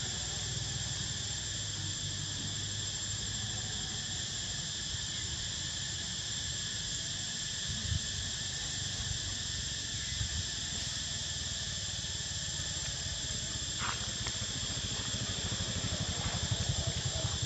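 Steady insect drone, several high unchanging pitches held together, over a low rumble.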